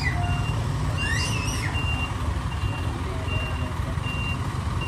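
A truck's engine running with a low rumble while its reversing alarm beeps steadily, one short high beep roughly every second.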